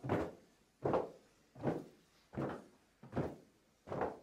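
A steady beat of dull percussive thumps, six of them, evenly spaced about three quarters of a second apart, keeping the song's time between sung lines.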